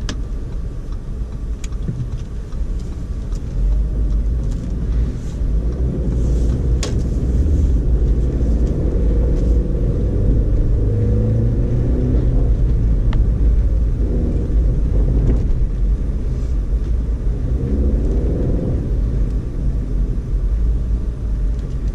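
Cabin rumble of a 2012 Audi A4 Quattro driving through snow: a steady low road and engine rumble, with the engine note wavering up and down for most of the stretch.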